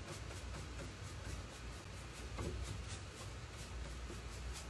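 Synthetic paintbrush brushing chalk mineral paint back and forth on an oak cabinet door, a soft scratchy stroking repeated several times a second, as a light colour is worked into a dark one to blend the edge. A low steady hum lies underneath.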